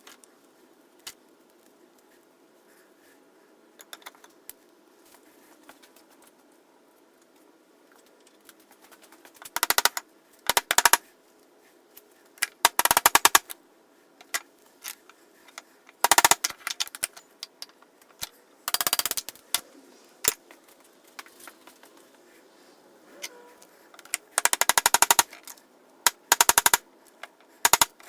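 A workshop tool going in short bursts of rapid, evenly spaced hammering clicks, about seven bursts of under a second each, starting about a third of the way in.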